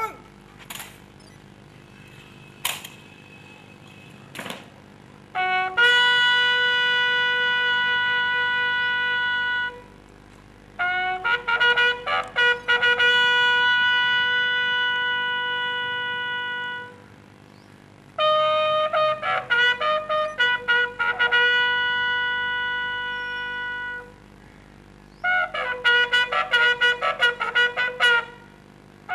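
Bugle call sounded for a police guard-of-honour salute: three phrases of short notes, each ending on a long held note, then a quicker run of short notes near the end. A few faint clicks come before the first phrase.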